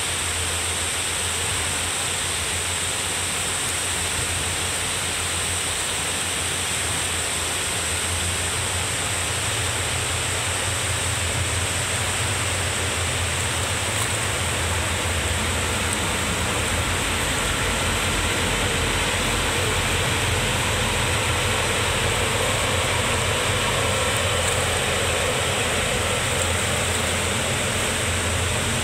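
Steady rush of river water pouring over a weir and churning out of the Archimedes screw turbines of a hydro-electric scheme, with a low rumble underneath.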